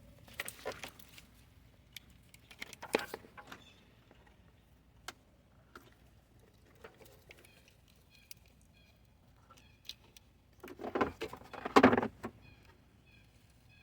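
Hands working under the hood on wiring harness connectors and tools: scattered light clicks and knocks, then a louder burst of clattering and rattling about eleven seconds in.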